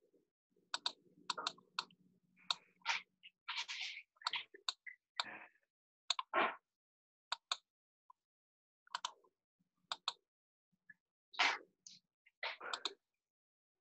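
Scattered computer mouse clicks, some in quick pairs, with a few brief soft rustles and bumps between them.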